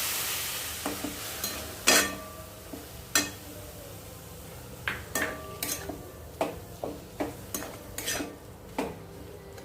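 A metal spoon stirring grated coconut and milk in a hot kadhai, clinking and scraping against the pan at irregular intervals. A sizzling hiss of the freshly added milk fades out within the first second or so.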